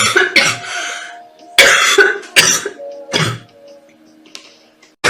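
A girl coughing about five times in quick succession, over quiet background music.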